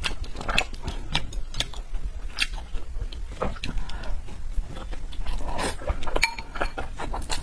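Close-miked eating sounds of a person chewing red braised pork: wet chewing and mouth smacks, an irregular run of short clicks.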